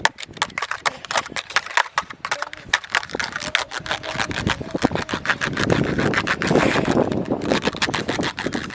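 Fingers tapping rapidly on a plastic kolukattai (modak) mold, a quick run of sharp plastic clicks several a second, with a scratchier stretch of rubbing past the middle.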